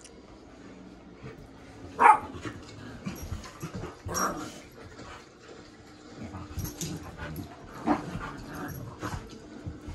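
Dogs play-fighting, with several short barks over the scuffling; the first, about two seconds in, is the loudest, and more follow around four, eight and nine seconds in.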